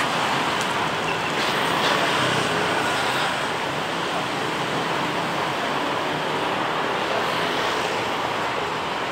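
Steady city street ambience: a constant wash of road traffic noise.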